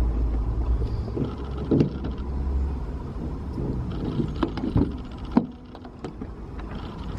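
A car on the move, heard from inside: a steady low road rumble with scattered clicks and knocks.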